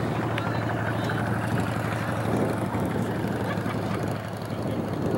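Steady low mechanical hum with a constant pitch, heard under outdoor noise, with faint distant voices.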